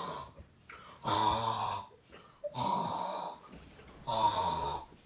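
A person's voice making four drawn-out wordless sounds, each about a second long, with short pauses between them.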